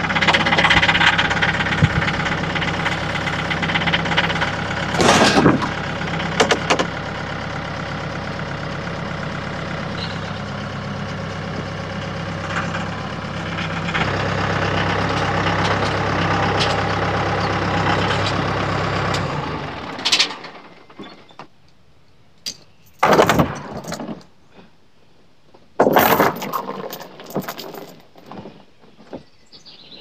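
Mahindra compact tractor's diesel engine running steadily as its front loader forks lift one end of a wooden dock, a little louder while lifting, then shutting off about two-thirds of the way through. After that come a few short, loud clanks and rattles of a steel chain being handled.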